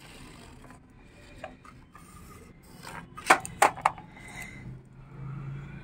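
A plastic toy backhoe loader being handled: rubbing and scraping of hard plastic, then two sharp plastic clicks a third of a second apart about three seconds in as its excavator arm is moved.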